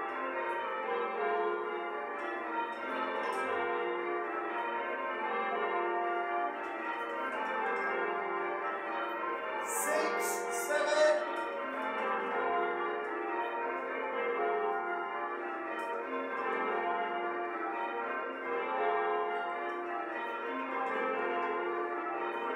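Church bells being rung in changes, a steady run of overlapping bell strikes. A short burst of noise cuts in about ten seconds in.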